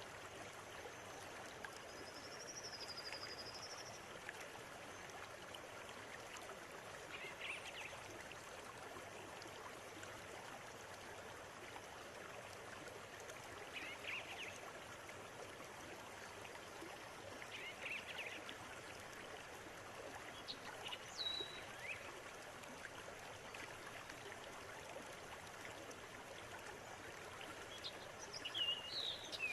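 River water running steadily, with birds calling now and then over it: a high wavering whistle a couple of seconds in, then short chirps every few seconds.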